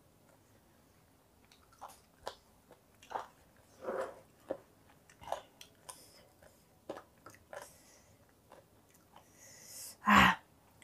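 Fingers squishing and mixing rice with chili sambal in a ceramic bowl, with scattered soft wet smacks and clicks of eating by hand. Near the end a hiss builds into one short, loud breath-like burst.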